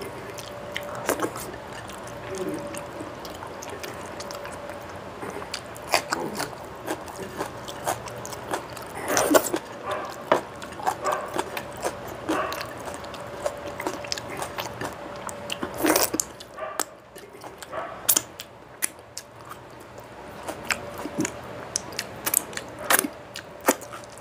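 Close-miked eating by hand: chewing with repeated mouth smacks and wet clicks, and fingers squishing rice and curry on a plate. A faint steady hum runs underneath.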